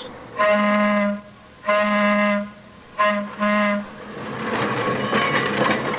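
Air horn of a Pacific Electric 'Big Red Car' interurban railcar sounding the grade-crossing signal: two long blasts, a short and a long. It is followed by the rising rumble of the car rolling closer.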